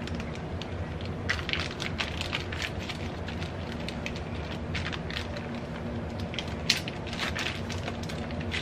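Zip-top plastic bag holding marinating chicken being pressed flat and sealed by hand: scattered crinkles and clicks of the plastic, with one sharper click late on.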